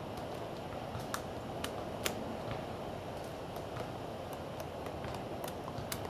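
Pileated woodpeckers pecking at pine bark while foraging: sharp irregular taps, about two a second, over a steady background hiss.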